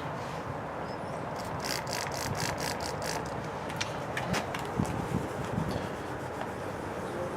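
Damp paper towel rubbed on a car windshield to scrub off water spots, with a quick run of rapid scrubbing strokes about a second and a half in and scattered scuffs and taps over steady outdoor background noise.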